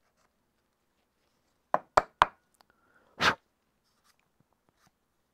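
Three quick, sharp wooden knocks about a quarter second apart, then a single short, louder burst about a second later, as a knife and a small wooden pot are handled while the groove is cleared of waste.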